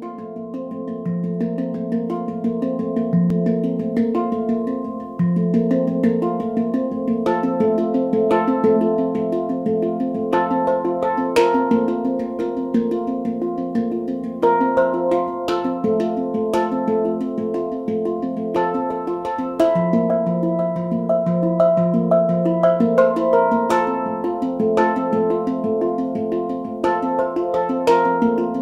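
Background music: a melody of ringing pitched notes over a held low drone, fading in at the start.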